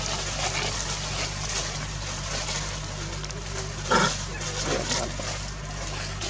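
Macaque giving one short call about four seconds in, with a fainter call just under a second later, over a steady background hiss.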